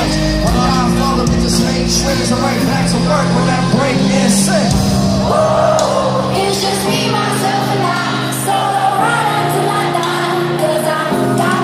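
Live concert music heard from the arena crowd: sustained chords shifting every few seconds under singing, with the crowd yelling and whooping.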